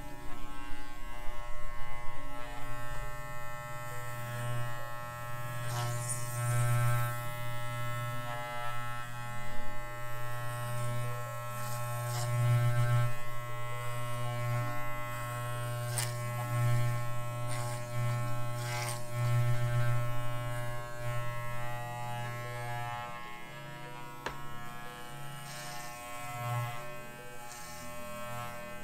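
Corded electric dog clippers buzzing steadily as they cut through a miniature schnauzer's curly head fur, the hum wavering in loudness as the blade works through the coat.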